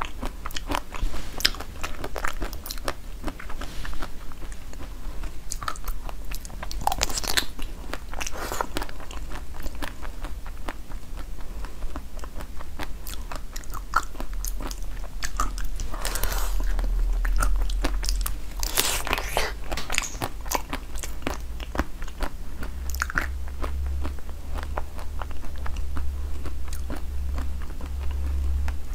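Close-miked eating: bites into a large pink food item and chewing, full of sharp crackling clicks, with louder bursts of crunching a few times. A steady low hum runs underneath and grows stronger near the end.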